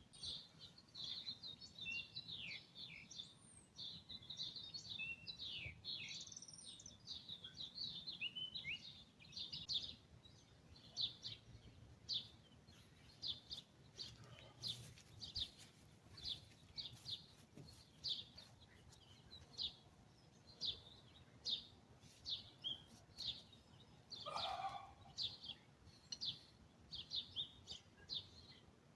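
Morning birdsong from several birds: busy overlapping high chirps and trills for the first ten seconds or so, then a steady run of short, high chirps repeated about once or twice a second. A lower, falling call comes in about three quarters of the way through.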